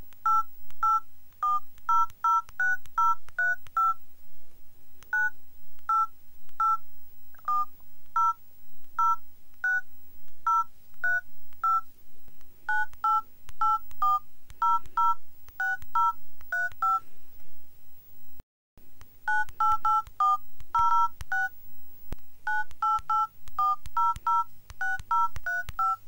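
Smartphone dialer keypad playing a short two-tone DTMF beep, with a faint click, for each key pressed. The key presses come in quick runs, with a brief pause about two-thirds of the way through.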